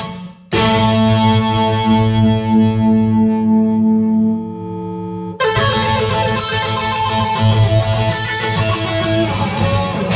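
Distorted Telecaster-style electric guitar played loud. A short chord stab is followed about half a second in by a chord left to ring for about five seconds. A busier run of chords comes in about five and a half seconds in and continues.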